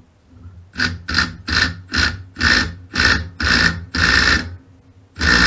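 Cordless impact driver with a 7/32 Allen bit run in a quick series of short trigger bursts, about nine of them, each a little longer than the last, then a longer burst near the end. It is trying to break loose a bolt on the generator's bell housing.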